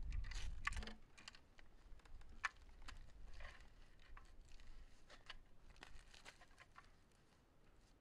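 Scattered light clicks and taps of gear being handled, irregular and faint, with a low rumble that stops just under a second in.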